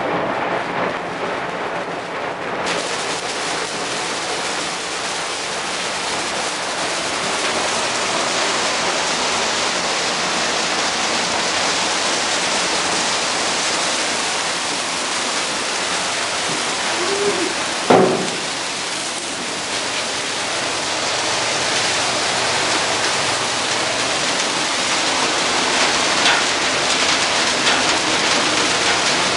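Dry Christmas tree burning fiercely, its needles and branches giving a dense, steady crackle and hiss of flames. A single sharp pop stands out about 18 seconds in.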